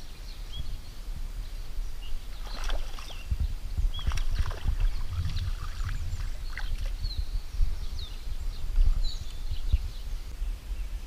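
A hooked smallmouth bass splashing and thrashing at the water's surface as it is reeled in, several sharp splashes in the first half, over a low steady rumble, with small birds chirping.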